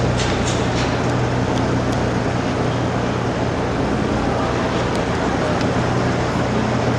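Busy exhibition hall ambience: a steady wash of crowd chatter over a constant low hum, with a few faint clicks.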